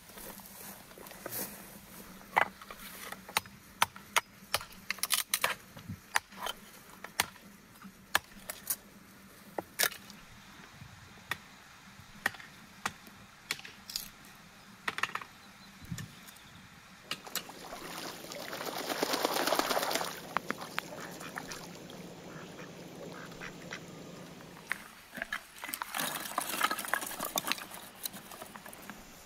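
Hatchet splitting firewood into kindling on a chopping block: sharp knocks at irregular intervals. About two-thirds of the way through comes a louder rasping sound lasting about three seconds, and a shorter one near the end.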